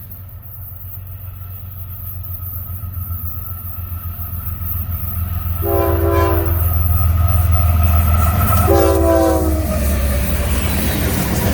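Diesel freight locomotive approaching with a low engine rumble that grows steadily louder, sounding its air horn in two short blasts about three seconds apart, each about a second long.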